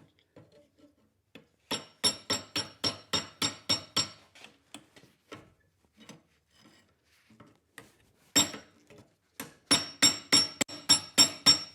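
Blacksmith's hammer striking steel on an anvil, each blow ringing: a quick run of about nine blows, a pause with one or two single strikes, then a longer, faster run near the end.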